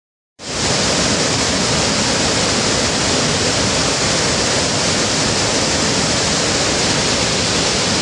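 The many cascades of Iguazu Falls rushing: a loud, steady hiss of falling water that cuts in suddenly just under half a second in.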